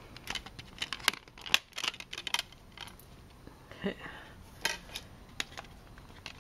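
Plastic clicks and snaps of a CD jewel case as a disc is pressed off its centre hub and handled: a quick run of sharp clicks over the first two and a half seconds, then a few scattered ones.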